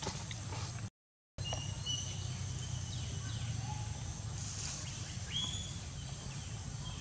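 Outdoor ambience: a steady low rumble with short, thin bird chirps and whistles at intervals. The sound drops out completely for under half a second about a second in.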